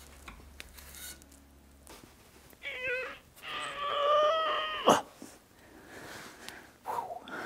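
Rusted shock-absorber bolt and nut squealing as it is turned with a wrench: a short wavering squeak, then a longer steady squeal about a second and a half long, cut off by a sharp metallic knock.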